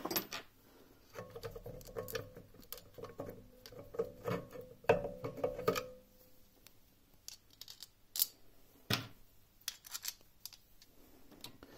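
Hands unfastening and lifting off a mini lathe's end gear cover: irregular light clicks, taps and scraping. There is a denser clatter in the middle and a couple of sharper clicks later on.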